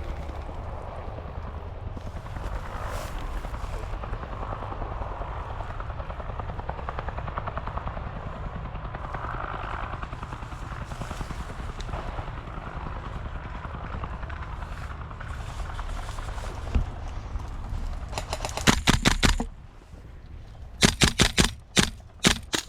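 A steady low rumble runs for most of the stretch and stops abruptly near the end. Then come several short bursts of rapid fully automatic airsoft gunfire, the loudest sounds here.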